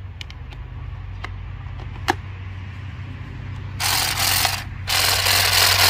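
Hard plastic parts of a cordless hedge trimmer clicking as they are handled. Then two longer scraping sounds as the battery pack is slid into the handle.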